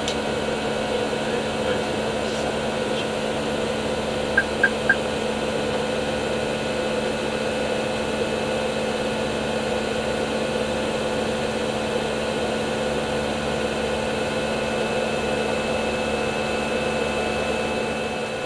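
Steady flight-deck noise of an Airbus A319 in flight: airflow with a constant hum. About four and a half seconds in come three short, high beeps in quick succession.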